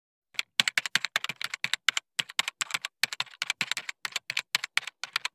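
Keyboard typing sound effect: a rapid, even run of key clicks, about seven a second, starting about half a second in, matching text being typed out on screen.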